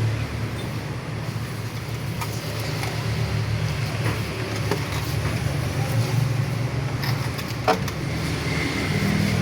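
A steady low mechanical hum, with one sharp click about three-quarters of the way through.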